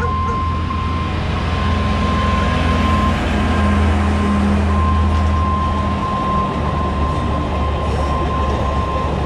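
Alishan Forest Railway DL-50 diesel locomotive hauling passenger coaches over a level crossing: a low diesel engine hum, loudest around three to five seconds in as it goes past, then the rolling rumble of the coaches on the rails. A steady high warning tone from the crossing signal sounds throughout.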